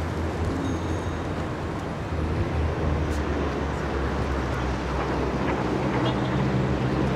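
Wind noise on the microphone with a steady low engine hum that grows stronger in the second half.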